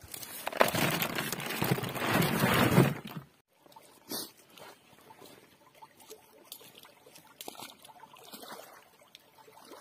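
A bucketful of live river snails poured into a foam box, the shells clattering against one another and the box for about three seconds before stopping abruptly.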